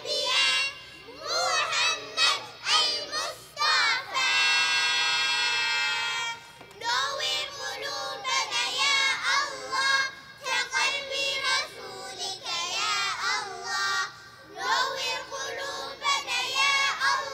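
A child's voice singing a melodic chant, with one long held note about four seconds in.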